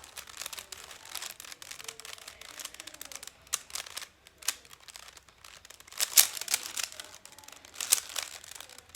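Crinkling rustle with many light clicks, with louder bursts about six and eight seconds in.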